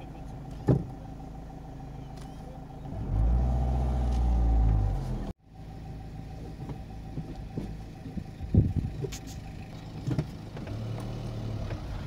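Car cabin sound while driving: steady engine and road rumble, the engine note swelling louder about three seconds in. It cuts off abruptly a little after five seconds, then the rumble resumes with a few short knocks.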